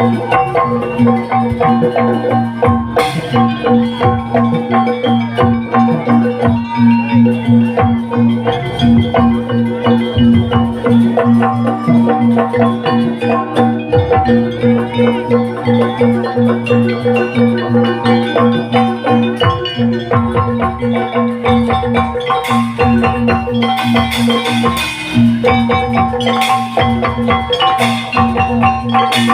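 Live Javanese jaranan gamelan music: metal-keyed mallet instruments strike a quick, even repeating pattern over a steady held tone.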